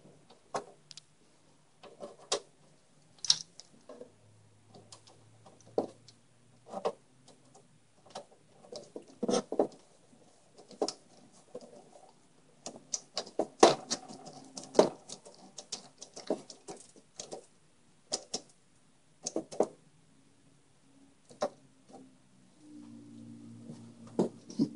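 Small metal screws and PC parts being handled and fastened: irregular clicks, taps and short rattles, busiest about halfway through.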